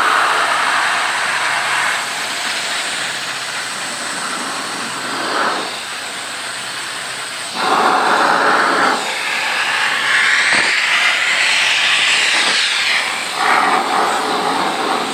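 Gravity-feed compressed-air paint spray gun hissing as it sprays paint onto a steel car wheel, the hiss getting louder and shifting in pitch in long stretches.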